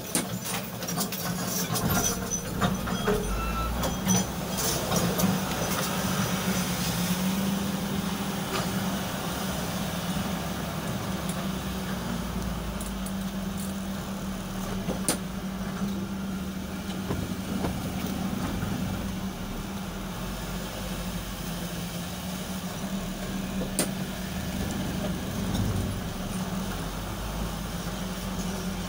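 Diesel engine of a Kobelco hydraulic excavator running with a steady drone, with scattered clicks and knocks in the first few seconds.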